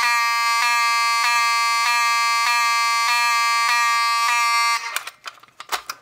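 Wheelock 7002T-24 horn/strobe's horn sounding a loud, steady buzzing tone that skips briefly a little under twice a second. Each skip comes as the strobe, wired in series with the horn coil, flashes and draws power away from the horn. The horn cuts off about five seconds in, followed by a few handling clicks and knocks.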